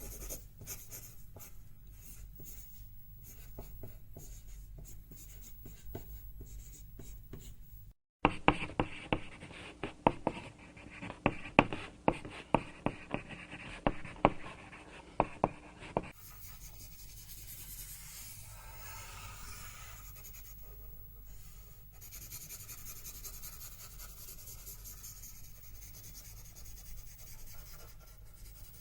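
Pencil writing on paper in several takes: faint scratching, then about eight seconds in a louder run of sharp, quick strokes, and from about sixteen seconds a softer, smoother scratching.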